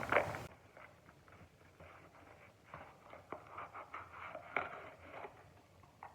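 Faint rustling, scraping and scattered clicks of a cardboard product box and its packaging being handled and pried open.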